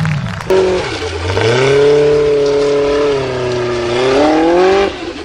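Formula Offroad hill-climb buggy engine at high revs. The pitch dips briefly, then climbs and holds high for a few seconds, and it drops away near the end.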